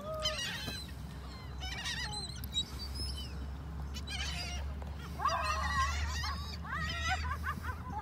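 A flock of seagulls calling overhead: many short, overlapping squawking cries, coming thickest a little past the middle as the birds swoop in for bread.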